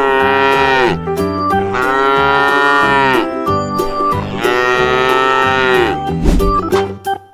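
Domestic cow mooing three times in long, drawn-out calls, each dropping in pitch as it ends, over light background music.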